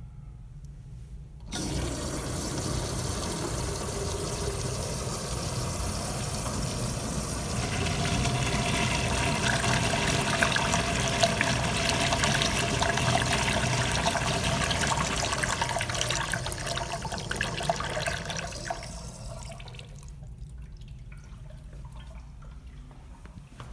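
A Crane Plumbing Manhattan urinal flushing through its Sloan Regal manual flush valve. The rush of water starts suddenly about a second and a half in and grows stronger partway through. It runs for roughly seventeen seconds, then dies away as the valve closes, leaving faint dripping.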